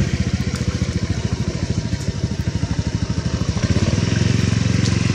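A small engine running steadily with a rapid, even pulse, with a few faint clicks over it.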